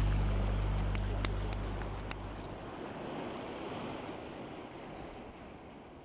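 Ocean surf washing onto a rocky shore, an even rushing sound that fades away steadily. The low held notes of background music die out about two seconds in, and a few sharp clicks come between one and two seconds in.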